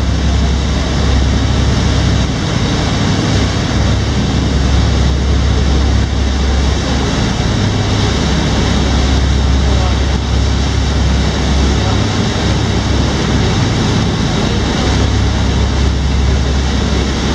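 Tour boat under way: a steady low engine rumble that swells and eases, under the even rush of water churning in its wake.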